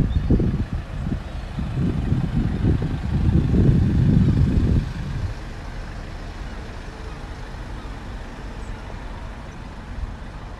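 A delivery truck driving past on the road alongside, its low engine and road noise loud for the first few seconds and falling away about five seconds in, leaving a steady background of street traffic.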